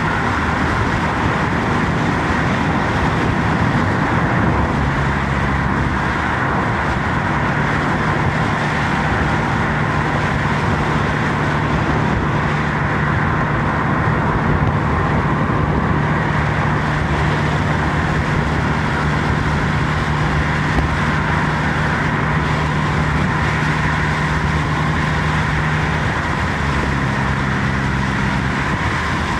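Steady road noise inside a moving car on a wet road: tyre hiss and a low engine hum. The hum steps in pitch about five seconds in and again near the end.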